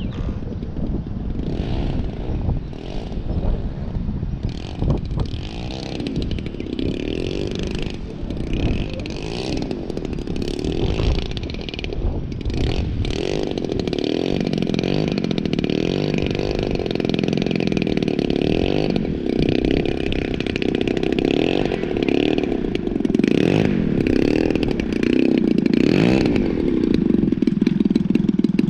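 DLE 85 twin-cylinder two-stroke gas engine of a large radio-controlled FW-190 model running at low taxi throttle, set rich, growing steadily louder as the plane comes close.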